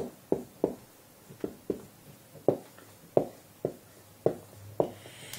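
A pen knocking against a hard writing surface while someone writes: about a dozen light, irregular taps, roughly two a second.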